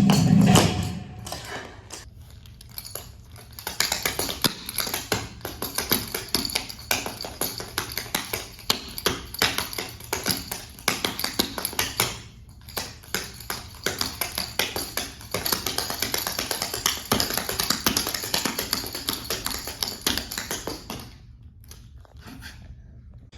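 Rapid rhythmic footwork: many quick taps and stamps of dancers' shoes on a hard floor, in runs broken by short pauses.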